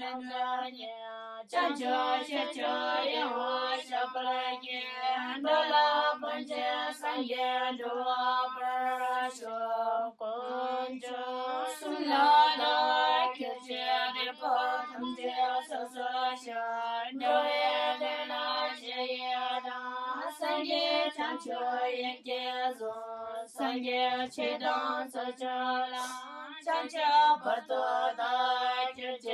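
Background music: high female voices singing a song, note after note in a flowing melody with short breaths between phrases.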